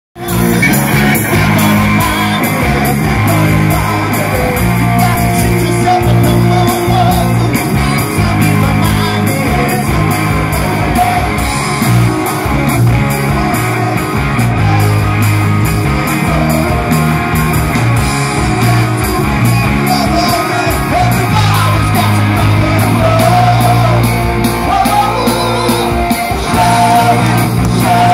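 Rock band playing live: electric guitars, bass guitar and drums with singing.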